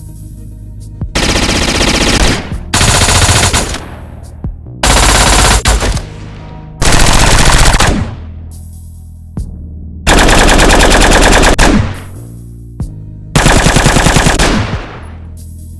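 Sci-fi energy weapon sound effects: six bursts of rapid automatic fire, each one to two seconds long, separated by short pauses, over a steady low drone.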